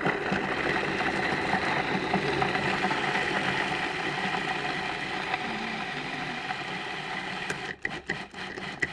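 Electric food processor motor running steadily with a pitched hum as it grates carrots, then breaking into short, uneven bursts near the end.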